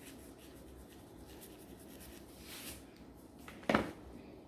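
Faint scratchy rubbing as seasoning is shaken onto raw chicken legs, with a brief hiss of the shaker about two and a half seconds in and a short, louder rattle near the end.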